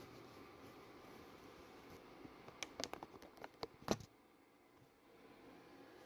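A quick run of light clicks and taps about two and a half seconds in, ending in a louder knock near four seconds, over a faint steady background hum that drops away right after.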